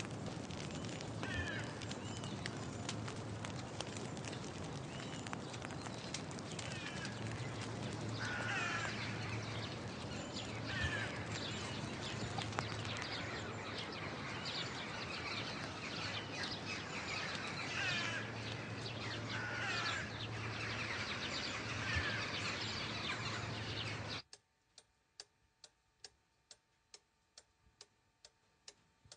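Crows cawing repeatedly over a steady rushing background with frequent small crackles. About 24 seconds in this cuts off suddenly to a quiet room, where a pendulum wall clock ticks about twice a second.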